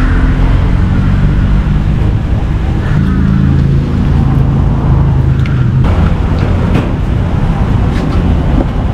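Road traffic noise with a vehicle engine running close by, a steady low hum that cuts off suddenly about six seconds in.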